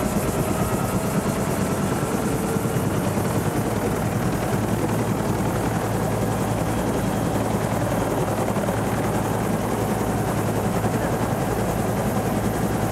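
Helicopter running steadily, its turbine and rotor noise unbroken throughout.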